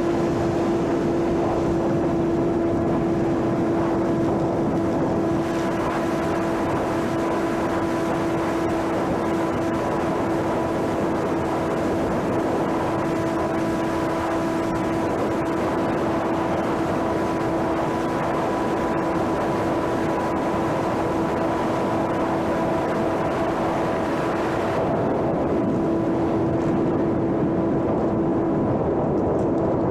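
Electric motor and propeller of a homemade radio-controlled airplane running at a constant speed: a steady pitched drone with a rush of air beneath it. The higher hiss thins out about 25 seconds in.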